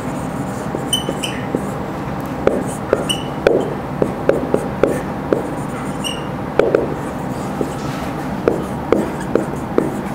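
Whiteboard marker writing: irregular short squeaks and taps of the tip on the board as numbers are written, over a steady background hum.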